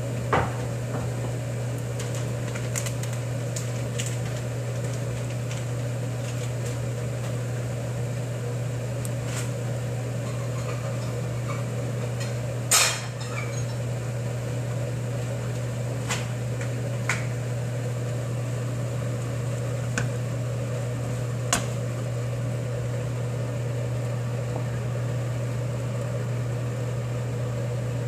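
Steady low hum of a running kitchen machine, with a few light clicks and one louder knock about halfway through.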